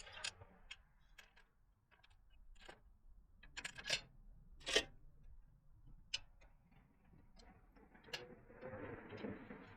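Scattered clicks and knocks of a bicycle wheel being handled and fitted back onto the bike, with a brief rustling scrape near the end.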